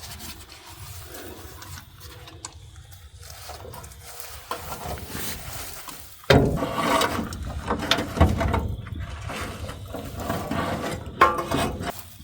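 Hand-tool work on the engine: irregular metal scraping, rubbing and clicking, fairly faint at first and turning suddenly louder about six seconds in.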